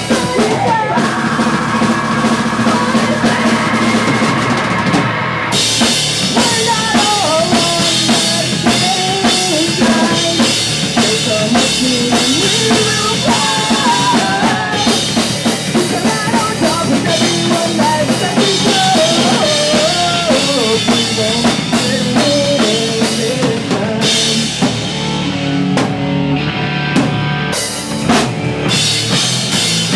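Pop punk band playing live, loud and driven by the drum kit's bass drum and snare, with a full cymbal wash coming in about five seconds in.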